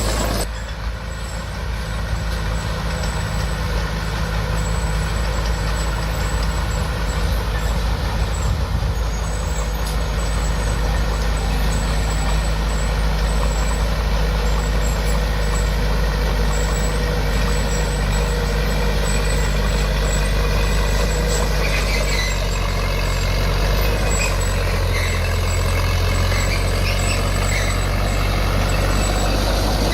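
Heavy diesel earthmoving machinery running steadily at work, with a low engine drone throughout.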